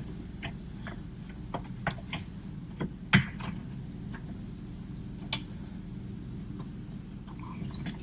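Scattered light metallic clicks and taps from hand tools and suspension parts being fitted, with one louder knock about three seconds in, over a steady low hum.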